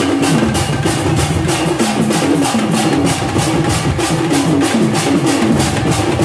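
Sambalpuri baja folk band playing: drums and cymbals keep a fast, steady beat of about four to five strokes a second, with a wind instrument's melody running over it.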